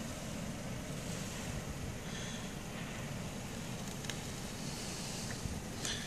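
Steady rushing wind in a snowstorm, with a couple of faint clicks about four seconds in and near the end.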